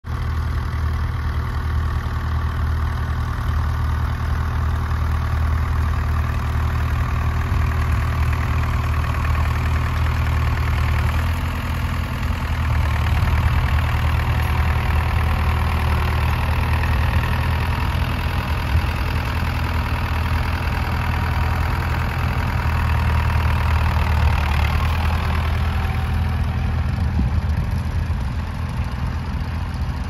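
Vintage tractor engine running steadily under load as it pulls a plough. The low engine note shifts about eleven seconds in.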